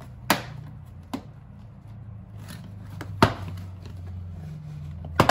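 Plastic retaining clips of a Toyota 4Runner's door-sill trim panel snapping loose as the panel is pulled up by hand: four sharp clicks, the loudest about three seconds in and near the end.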